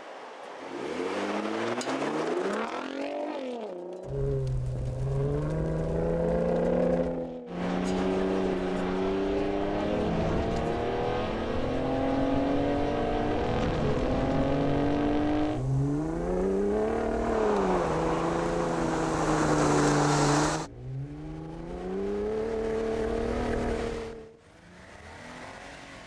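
Ford F-150 Raptor pickup's engine revving and pulling, its pitch rising and falling again and again, with a longer steady climb in the middle. The sound breaks off sharply several times between clips.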